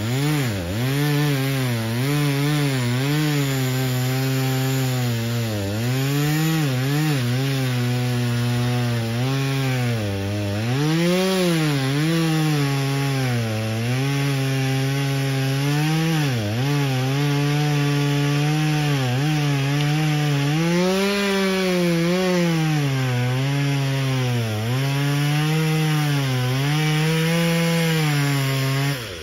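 Gas chainsaw cutting into a tree trunk, its engine pitch repeatedly sagging and climbing back as the chain bites into the wood and eases off. The saw stops suddenly near the end.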